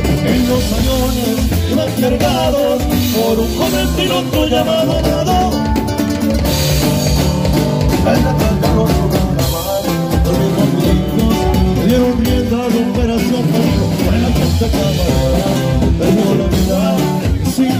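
Live norteño band playing an instrumental passage: a button accordion carries the melody over electric guitars, bass and drums with a steady beat.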